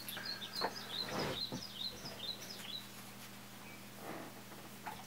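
A small bird chirping a quick run of about a dozen short, high, falling chirps over the first three seconds, with a few faint knocks mixed in.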